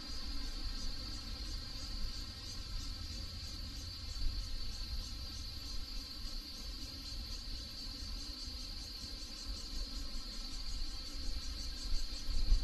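Crickets chirping in a steady high trill, pulsing about three times a second, over a low rumble.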